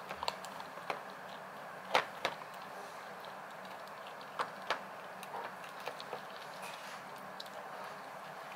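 Rottweiler puppy eating dry kibble from a stainless steel bowl: irregular sharp crunches and clicks of kibble and muzzle against the metal bowl, the loudest about two seconds in, over a steady faint hiss.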